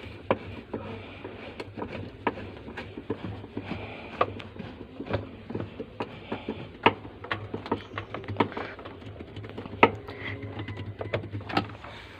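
Irregular small clicks and scrapes of a screwdriver tightening the centre screw that holds a new pulsator onto a washing machine's drive shaft, over a steady low hum.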